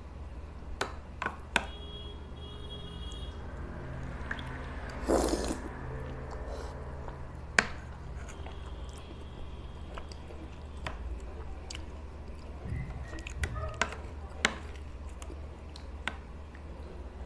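Eating sounds picked up close: a metal spoon clicks sharply against a tray now and then as it cuts and scoops milk-soaked rasabali, with chewing and mouth sounds between. The loudest is a short noisy burst about five seconds in.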